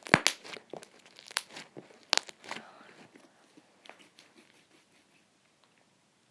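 White fluffy slime made with shaving cream being stretched and squished by hand, giving off sharp crackling pops that thin out and stop about five seconds in.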